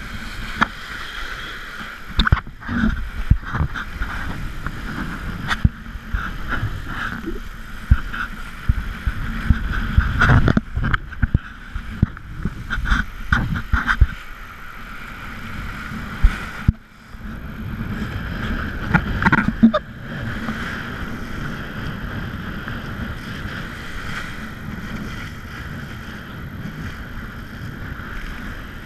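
Kiteboard planing over choppy water: a steady rush of water and spray, broken by repeated sharp slaps and thumps as the board hits the chop, most of them in the first half and another cluster a little past the middle.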